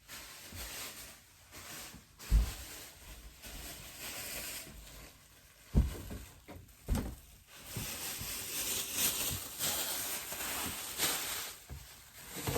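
Cleaning inside a mini fridge: a few separate knocks, then a longer stretch of hissy rubbing, as of scrubbing or wiping the inside.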